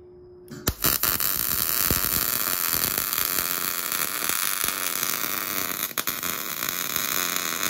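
MIG welding arc laying a bead on a steel motorcycle frame mount: it strikes with a few sharp pops about half a second in, runs as a steady hiss for about seven seconds, and cuts off suddenly when the trigger is released.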